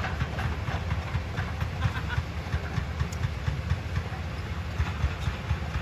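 Hitachi hydraulic excavator travelling on its steel tracks: diesel engine running under an uneven low rumble, with irregular clanking and rattling from the track chains.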